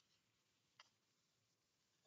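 Near silence: room tone, with one faint click a little under a second in.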